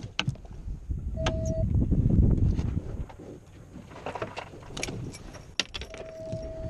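Scattered knocks and thuds on a boat's fiberglass deck as a freshly gaffed king mackerel and the gaff are handled, with muffled rubbing on the microphone about two seconds in. A steady high tone sounds briefly about a second in and again for over a second near the end.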